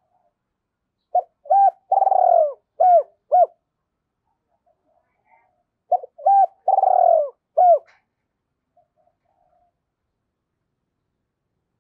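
Spotted dove cooing: two phrases, about a second in and about six seconds in, each of a few short coos around one longer, drawn-out falling note.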